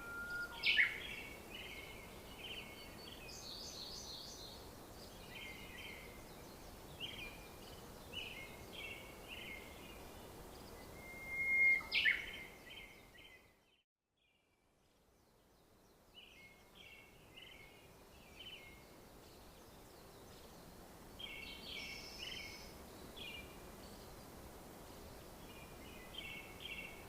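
Songbirds chirping and singing in short repeated phrases over faint outdoor background noise. About twelve seconds in there is a brief louder sound, and then the audio drops out completely for about two seconds before the birdsong returns.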